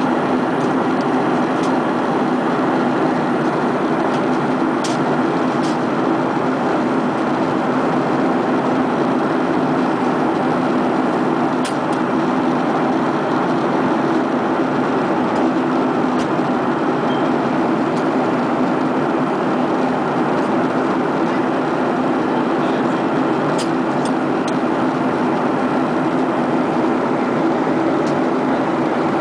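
Steady drone of an airliner cabin in flight: jet engine and airflow noise, with a few faint ticks.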